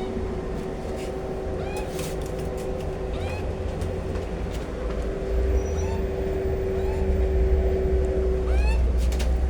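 A street sweeper's engine running nearby, a steady hum over a low rumble that grows louder about halfway through, while magpies give short rising chirps and there are a few sharp clicks.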